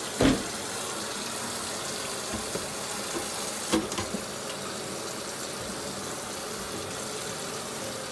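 Kitchen tap running steadily into a stainless steel sink while something is rinsed under it. A dishwasher door shuts with a thud just after the start, and there is a light clink of dishes nearly four seconds in.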